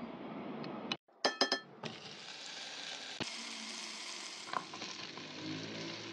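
A steady rushing noise that cuts off about a second in, followed by a few quick, ringing metal clinks of cookware and then food sizzling steadily in a pan.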